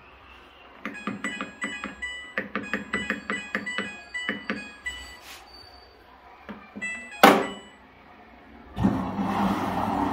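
Washing machine control-panel beeps: a quick run of short electronic beeps as the wash settings are selected, then a single longer beep. A loud thunk follows about seven seconds in, and a rush of noise starts near the end as the machine is started.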